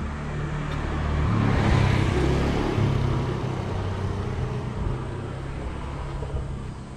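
A motor vehicle running close by: a low engine hum with road noise that swells to its loudest about two seconds in, then stays fairly steady.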